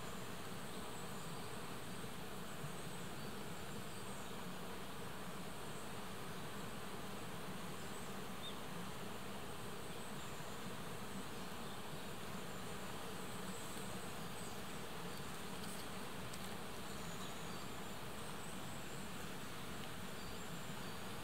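Steady buzzing of flying insects over an even background hiss.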